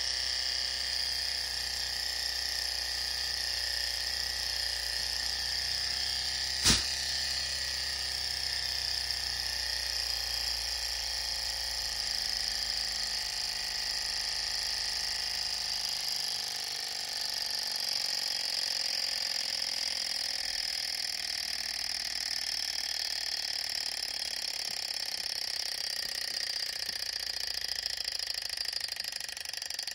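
Small model hot air engine running steadily, its flywheel, piston and linkage giving an even mechanical whir. A single sharp click comes about seven seconds in.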